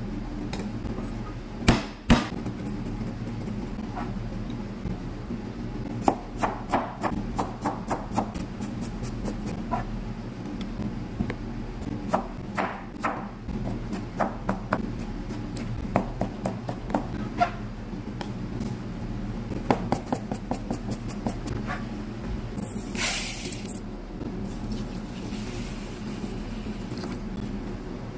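Cleaver blade chopping on a plastic cutting board: single knocks and runs of rapid knocks as garlic and then tomatoes are chopped, over a steady low hum. Near the end, water splashes in a bowl as rice is washed.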